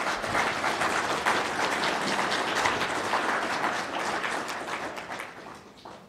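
Audience applauding, the clapping thinning out and dying away near the end.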